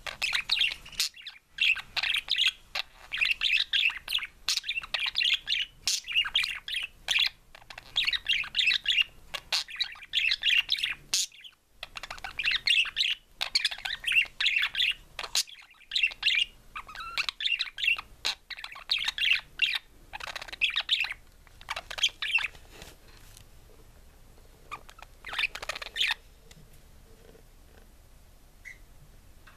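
Budgerigar warbling: a long run of fast chattering chirps, clicks and short squeaky notes, with brief pauses, that stops a few seconds before the end.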